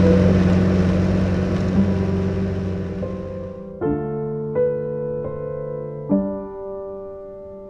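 A small motorcycle engine runs at a steady speed with wind noise, fading out over the first few seconds. Slow piano music then begins about four seconds in, with a few soft chords.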